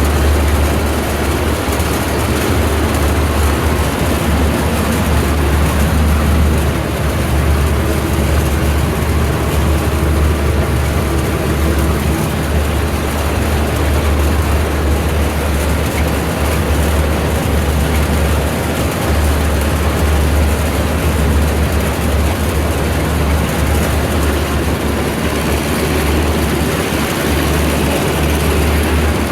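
Tractor engine running steadily with a deep low hum and no letup.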